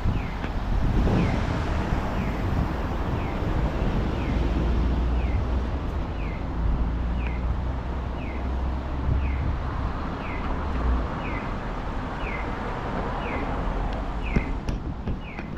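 Street traffic, with the low rumble of a passing vehicle swelling in the middle and then fading. Over it a short, high, falling chirp repeats evenly about once a second.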